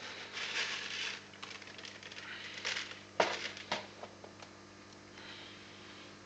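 Close handling noise: rustling and crackling in the first couple of seconds, then two sharp clicks about three seconds in, over a steady low hum.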